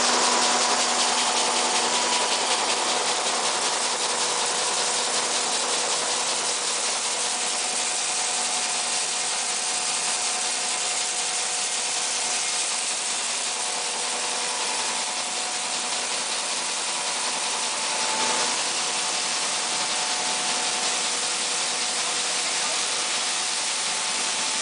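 5XZ-5A grain gravity separator running: a steady rushing hiss of grain sliding across the vibrating deck and pouring off into the outlets, over a steady machine hum.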